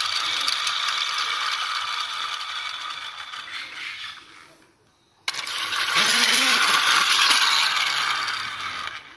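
Small plastic toy helicopter on wheels rattling and whirring as it is rolled along concrete by hand, its geared rotor spinning. The sound dies away about four and a half seconds in, stops for under a second, then starts again suddenly and runs on until it fades near the end.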